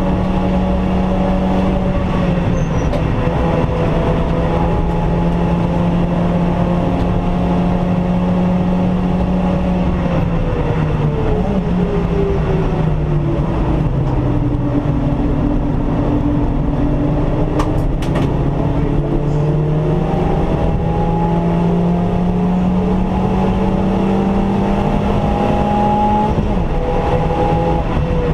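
Stage 2 Suzuki Swift's four-cylinder engine heard from inside the cabin at track speed, over steady road and tyre noise. It holds steady revs at first, falls in pitch over a few seconds as the car slows into a corner, then climbs steadily as it accelerates out, and drops again near the end.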